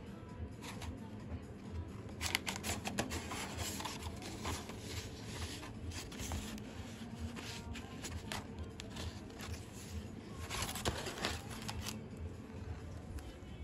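Paper template being handled and pressed against sheet-metal bodywork: crinkling and rustling in short bursts, busiest about two seconds in and again about eleven seconds in.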